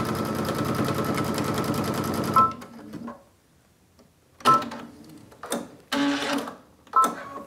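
Brother XV Dream Machine sewing a straight stitch at speed with a fast, even needle rhythm, stopping about two and a half seconds in with a short two-note beep. Later come a few brief mechanical sounds and two more of the same beeps.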